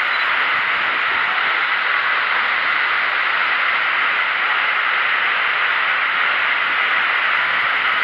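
Waterfall's falling water heard close by, a steady rushing hiss that does not change.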